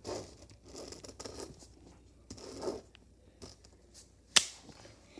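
Pen strokes scratching and rubbing on paper in short stretches, with one sharp click about four seconds in.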